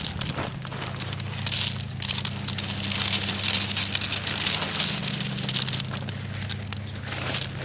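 Gravel being poured from a plastic bag into a hole: a dense rattle of small stones with crinkling of the bag, heaviest from about a second and a half in until near the end. A steady low hum runs underneath.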